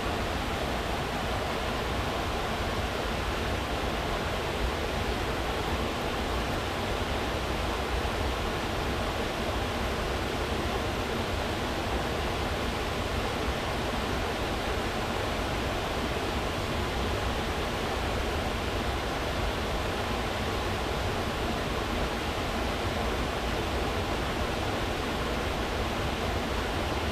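Half-frozen waterfall pouring steadily, a constant even rush of falling water with deep low rumble and no breaks.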